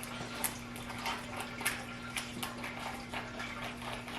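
Soft, irregular wet crackles and clicks of fluffy slime being handled, a few a second, over a faint steady hum.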